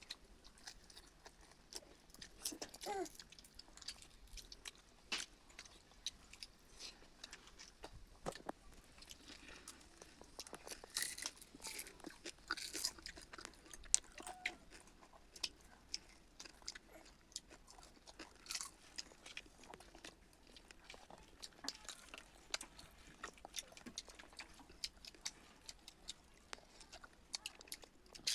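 A person chewing food, with crunching and many small, sharp clicks from the mouth.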